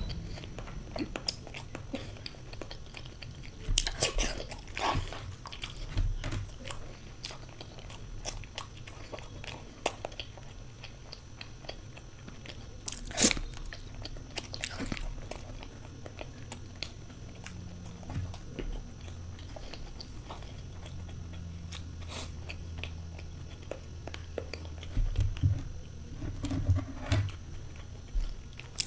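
A person eating spicy eggs close to the microphone: biting and chewing, with many scattered sharp mouth clicks and a few louder ones about four, five and thirteen seconds in.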